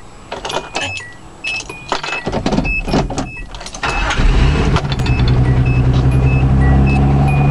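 1988 Nissan Hardbody pickup's stock engine starting up about four seconds in after some clicks and knocks, then idling steadily.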